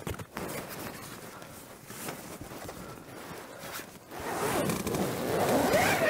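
Rustling with short scrapes and a zip as a pop-up camouflage hunting blind is closed from inside. About four seconds in, a louder sound takes over: many short rising-and-falling tones overlapping one another.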